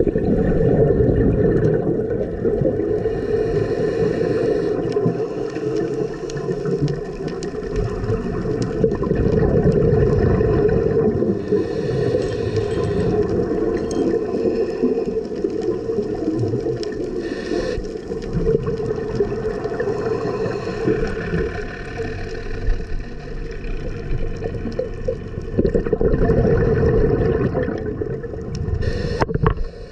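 Underwater ambience picked up by a camera microphone beneath the surface: a muffled, low rumble and gurgle of water. Swells of diver's exhaled regulator bubbles rise and fall every several seconds.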